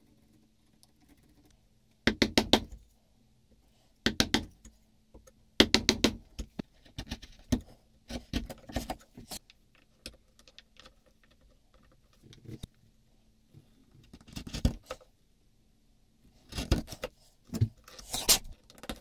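Groups of quick, light taps from a small hammer striking a small metal block set on a wooden hand-plane body. There are several rapid strikes in each group, with pauses between the groups.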